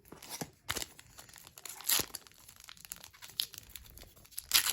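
Plastic wrapper of a trading card pack crinkling and being torn open, in irregular rustles with a louder rip about two seconds in and another near the end.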